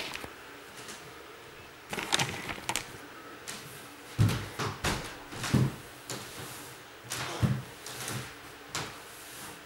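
Irregular knocks, clatters and a few heavier thumps of household objects being handled and set down in a small room.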